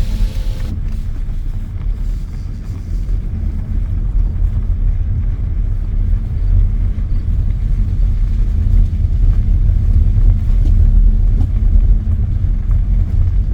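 Car driving with its windows rolled down: a steady low rumble of road and wind noise heard from inside the cabin.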